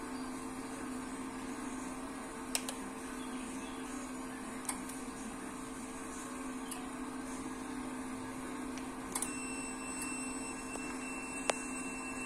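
Cooling fans and power supply of a home-built 144 MHz power amplifier running under test, a steady hum over fan noise, with a few light clicks. A thin, steady high-pitched tone joins about nine seconds in.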